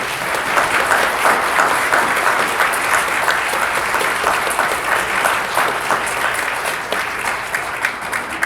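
Audience applauding with steady clapping that eases slightly near the end.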